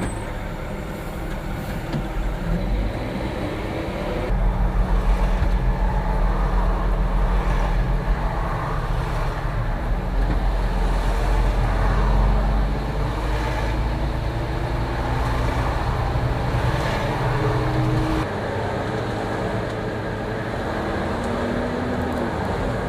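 Concrete mixer truck's CAT C13 diesel engine running, revving up about four seconds in and holding high with a slowly rising pitch, then dropping back near idle about eighteen seconds in.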